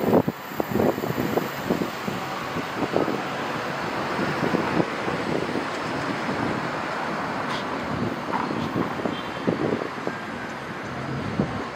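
Steady rush of city road traffic, with a few faint knocks scattered through it.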